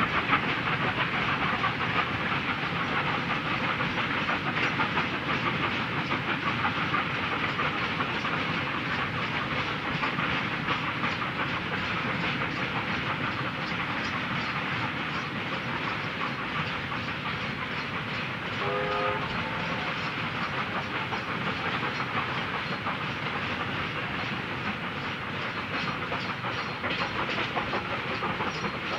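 Freight train hauled by Chinese QJ 2-10-2 steam locomotives running past: a steady rumble and hiss of the train with wagon wheels clicking over rail joints. A short whistle blast sounds about two-thirds of the way through.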